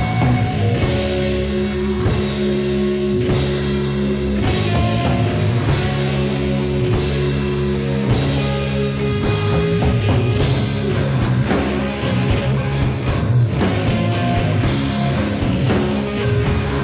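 Live rock band playing: electric bass, electric guitar and drum kit, with held low notes over a steady beat.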